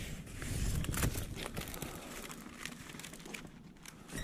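Papers and envelopes rustling and crinkling in a cardboard box as they are handled, with scattered light clicks and knocks; busier in the first second or so, then quieter.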